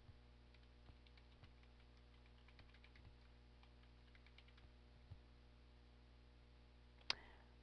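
Faint typing on a computer keyboard: scattered light key taps, then one sharper click near the end.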